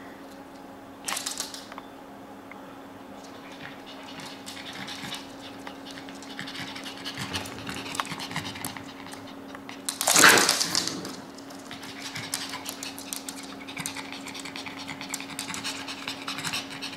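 A Shih Tzu and a Maltese playing on a hardwood floor: claws clicking and scuffling, with panting. One loud, falling dog yelp about ten seconds in.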